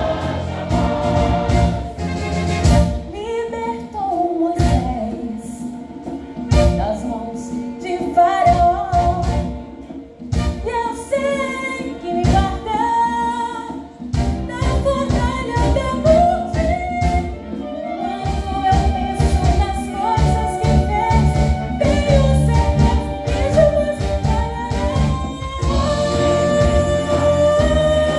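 Gospel music: a choir singing a melody over band accompaniment, with drum strikes throughout.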